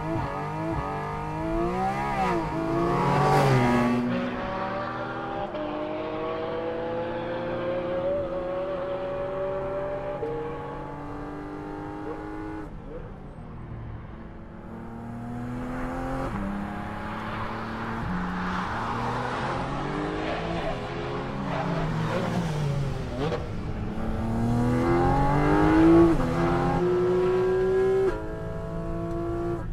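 Porsche 718 Cayman GT4 RS's naturally aspirated 4.0-litre flat-six revving hard on track. There are long pulls of steadily rising pitch, broken by shifts and quick up-and-down revs into corners. The loudest pull peaks about 26 seconds in and drops off sharply about two seconds later.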